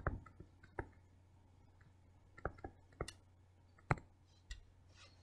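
Faint, scattered clicks and taps of a stylus on a writing tablet during handwriting: several in the first second, then single ones every half second to a second.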